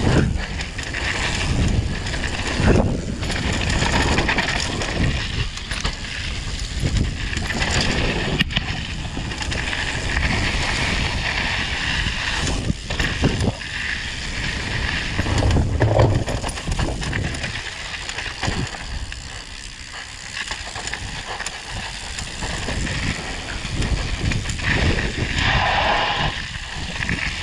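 Downhill mountain bike running fast over a rough dirt trail, heard from on the bike: continuous tyre noise on dirt with irregular rattles and knocks as the bike hits bumps and rocks.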